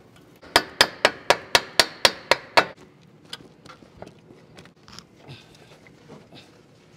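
Hammer blows on a Mitsubishi Lancer's front steering knuckle: nine quick, ringing metal strikes at about four a second, knocking the knuckle loose for a front wheel bearing replacement. They are followed by faint clinks of the parts being handled.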